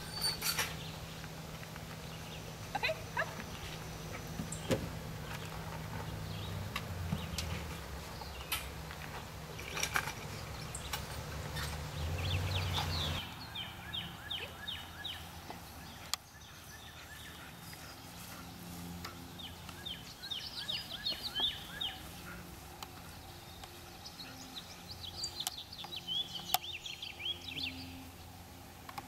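Outdoor ambience: a steady low hum with scattered short clicks, then, after a cut, songbirds calling in quick chirping series several times.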